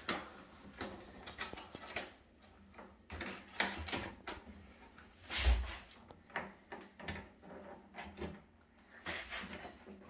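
Scattered clicks, knocks and rubbing of plastic as hands handle a corrugated plastic sink drain hose at a grey plastic sewer pipe fitting, with one louder, low thump about five and a half seconds in.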